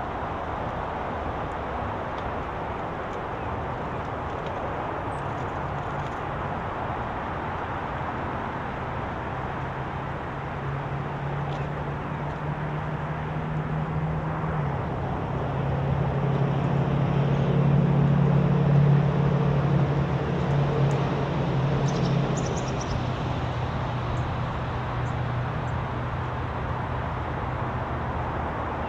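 Steady outdoor background noise with a passing engine's low drone that builds, peaks a little past the middle and fades, and a few faint bird chirps near the end.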